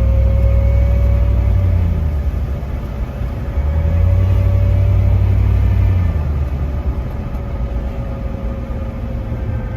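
Jeep driving with a heavy low drivetrain and road rumble and a steady whine that rises slightly in pitch and then falls slowly toward the end. The owner takes the whine for the NP231 transfer case, where he later found metal filings and burnt-smelling oil.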